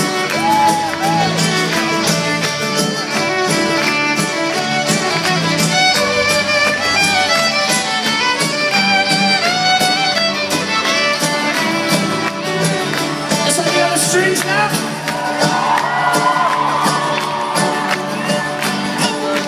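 Live band playing an upbeat fiddle-led folk-rock tune over a steady drum beat, heard through the PA from within a large crowd.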